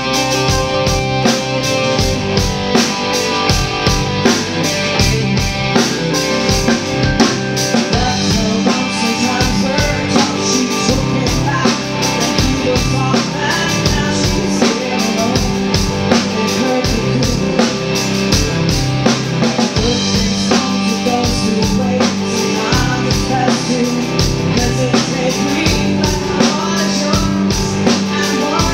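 A live band playing with a steady drum beat, made up of drum kit, electric guitar, bass guitar and keyboard, with a woman singing lead.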